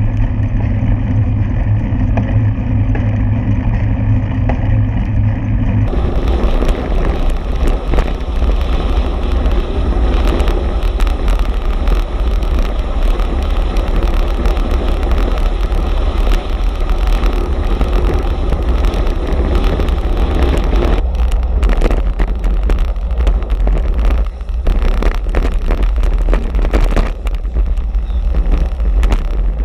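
Wind buffeting the microphone of an action camera mounted on a racing bicycle, mixed with tyre and road noise as a steady low rumble. About six seconds in it turns into a broader, brighter rush.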